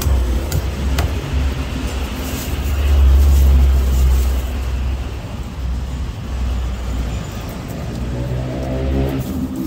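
Low, steady rumble of road traffic, a vehicle engine swelling about three seconds in. Near the end an engine climbs in pitch as it revs. Two sharp knocks come about half a second and a second in.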